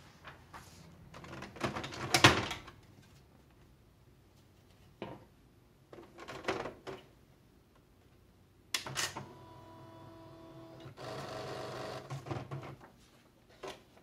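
Sheets of paper rustling as they are handled, loudest about two seconds in. About nine seconds in there is a click, then the Sharp PA-3110II electronic daisywheel typewriter's motor whirs with a steady tone for a couple of seconds, followed by a rougher mechanical whir and a few clicks.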